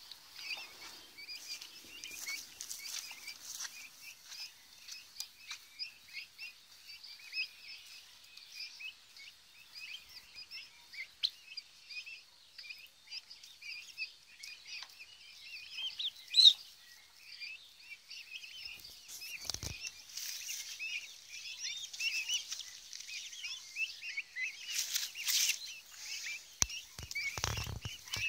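A flock of young turkey poults peeping continuously, many short high cheeps overlapping as they feed. A single sharp click sounds about halfway through, and a few brief low bumps come later and near the end.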